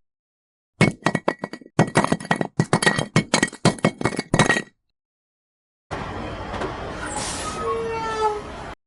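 Miniature clay bricks clinking against one another in a rapid string of sharp clicks for about four seconds. After a brief pause comes a steady rushing noise with a few falling tones near its end.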